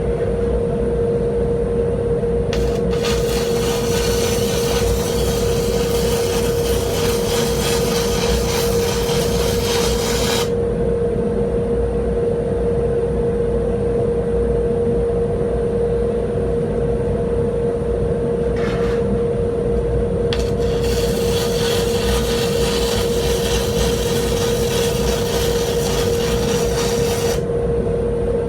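Stick (arc) welder running: the arc crackles and sizzles in two runs of several seconds each, with a short strike in between, over the welding machine's steady hum.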